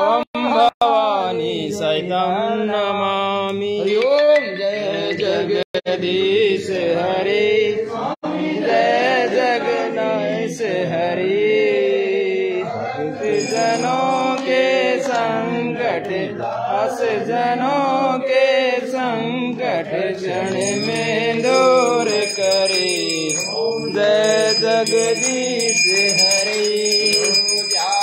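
Sanskrit mantras of a havan fire ritual chanted continuously in a melodic, sing-song voice. A small bell rings over the chanting through the last third.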